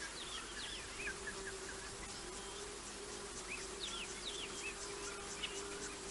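Evening bush ambience: a steady low insect drone with scattered short high chirps over it, and faint quick ticking high up in the second half.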